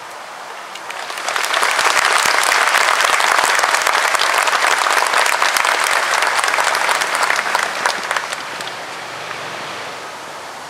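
Audience applauding at the close of a speech. The clapping swells about a second in, holds steady, and dies away a couple of seconds before the end.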